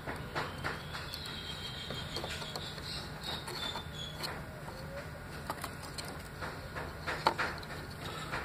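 Quiet background: a low steady hum with scattered light clicks and faint high chirping.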